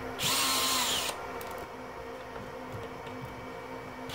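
Cordless drill/driver spinning a long screwdriver bit in the screws of a hard-drive hot-swap tray: one run of about a second, starting just after the start, its whine dropping in pitch as the motor stops.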